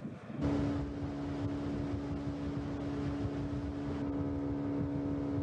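A small boat's motor running steadily at one unchanging pitch, heard from on board. It starts about half a second in.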